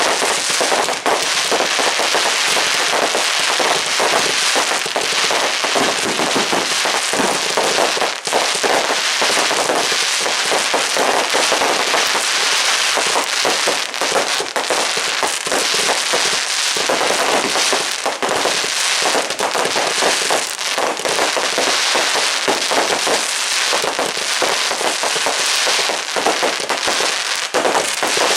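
Dense, continuous crackling and popping of many fireworks and firecrackers going off at once, an unbroken barrage of sharp bangs with no pause.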